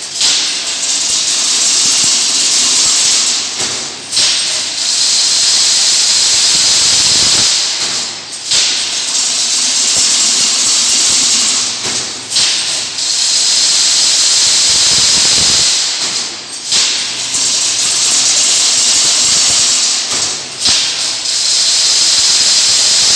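Automatic chain-link fence weaving machine running: a loud, continuous high-pitched hiss that dips briefly about every four seconds in a regular working cycle.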